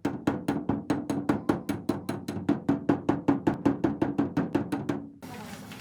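Hammer tapping out a dent in sheet-metal car hood panel: rapid, even blows at about six a second, each with a short metallic ring. The tapping stops suddenly about five seconds in.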